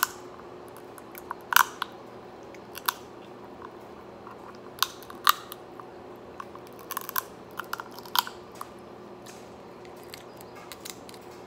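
Crab leg shells cracking and snapping as the meat is bitten and pulled out, with close-up chewing and smacking: a string of sharp, irregular clicks and cracks, about a dozen, bunched in the first nine seconds.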